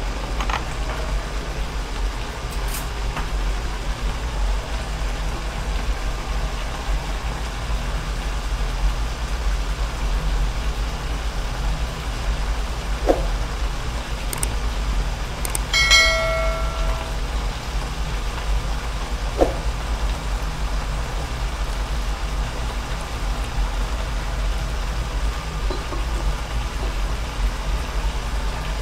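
Bok choy and mushrooms simmering in a wok, a steady low rumble and hiss with no stirring. About halfway a short pitched tone rings out, with two faint clicks a few seconds either side of it.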